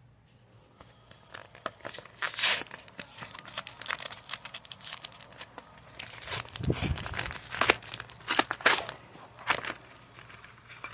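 Crinkly packaging being torn open and crumpled by hand in irregular rustling bursts, loudest a couple of seconds in and again in the second half.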